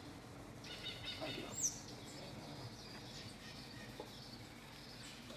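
Faint open-air ambience with small birds chirping, including a quick sweeping call about a second and a half in.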